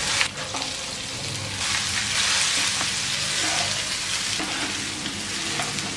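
Hot oil tempering in a kadai sizzling as cooked rice is tipped in and stirred through with a wooden spatula: a steady hiss that swells from about two seconds in and eases again near the end.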